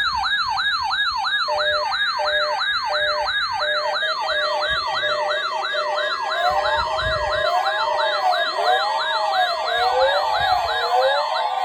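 Several electronic siren sounds layered together: a fast yelp sweeping up and down about three times a second, joined about halfway through by slower wailing sweeps. A short pulsing tone sounds under them in the first few seconds.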